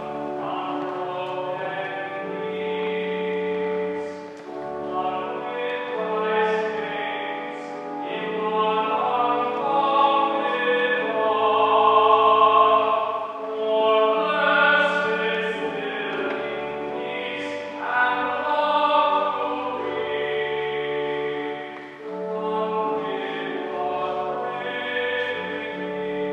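A hymn sung with organ accompaniment: a singing voice over sustained organ chords and held bass notes.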